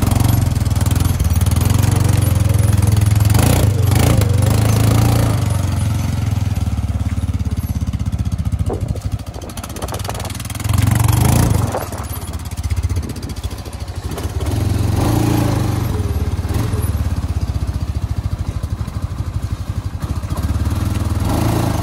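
CFMoto Terralander 500 ATV engine running as the quad is ridden off, with a steady low note, a couple of dips as the throttle is eased, and the engine briefly getting louder about halfway through.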